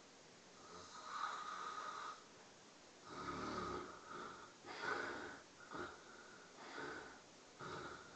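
A person snoring in their sleep: about six snores of uneven length in an irregular rhythm, the loudest about a second in and again about five seconds in.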